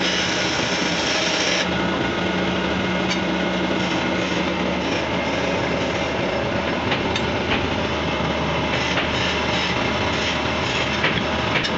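Hand chisel cutting a spinning wooden spindle on a wood lathe: a steady scraping hiss of shavings coming off, over the running lathe. The hiss grows duller about two seconds in.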